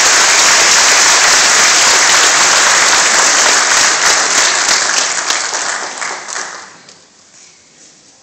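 Audience applauding loudly, dying away about six to seven seconds in.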